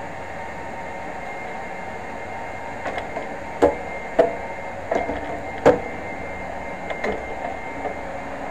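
Several short, sharp knocks and taps, the two loudest about a third and two-thirds of the way in, over a steady background hiss.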